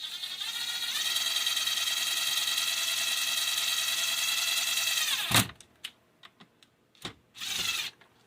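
Drill spinning a screw used as a makeshift bit to bore a hole through a microwave door latch part: a steady whine for about five seconds that winds down, followed by a few handling clicks and a short rasp.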